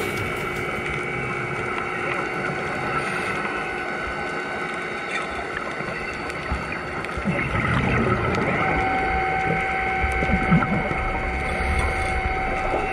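Underwater whine of a diver propulsion vehicle's electric motor and propeller, a steady hum of several tones over rushing water, with another tone joining about two-thirds of the way in as its speed or distance changes. Gurgling of exhaled regulator bubbles mixes in.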